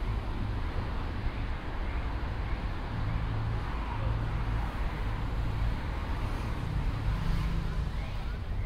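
Street ambience of steady traffic noise, a continuous low rumble of vehicles with faint short high chirps over it.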